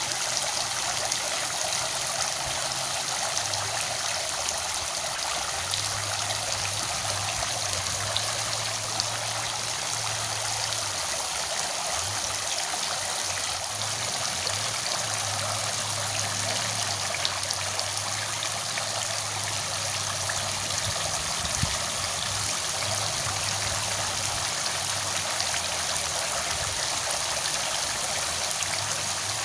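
Steady rush of running water, with a low hum that comes and goes beneath it.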